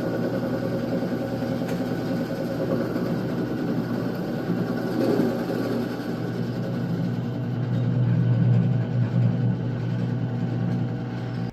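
Power drill running a 1 3/8-inch hole saw through a 2x6 board: a steady motor drone with the cutting noise of the saw teeth in the wood, getting louder for a few seconds near the end, then cutting off.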